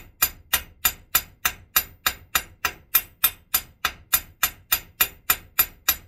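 Small hand hammer peening a soft copper rivet down against steel round stock held in a vise, forming the rivet head to tighten the joint. The taps are quick, sharp and evenly spaced, about three a second.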